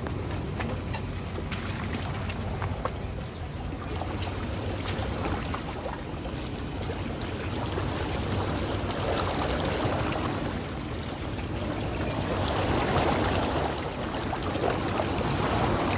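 Off-road 4x4's engine running at low speed as it drives through water on the trail, with water sloshing and splashing around the tyres, the splashing louder in the second half.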